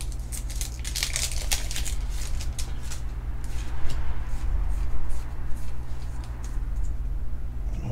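Foil booster-pack wrapper crinkling and tearing as it is opened, then the cards sliding and clicking as they are handled. The dense crackle comes in the first few seconds, with sparser clicks after.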